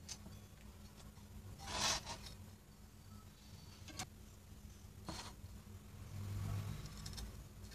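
Faint handling noise as a wire is held to a small circuit board for soldering: a short rubbing scrape about two seconds in, a light tick at about four seconds, and softer rubs later, over a low steady hum.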